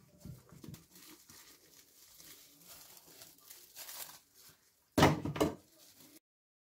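Plastic cling film crinkling and rustling faintly as hands lift a plastic container away and peel the film, with one louder burst of handling noise about five seconds in. The sound cuts off abruptly near the end.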